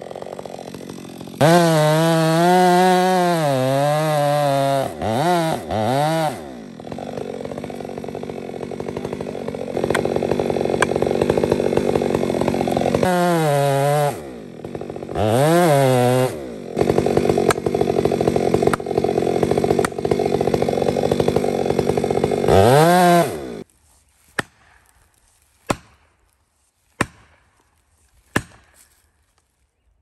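Chainsaw cutting into a tree trunk to fell it, revving up and down between stretches of steady cutting, then shutting off suddenly. Four sharp knocks follow about a second apart: a felling wedge being driven into the cut.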